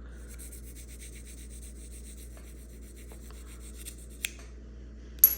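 Steel dental scaler blade drawn against a handheld sharpening stone in short strokes: a light, rasping scrape. Near the end come two sharp clicks, the second the loudest.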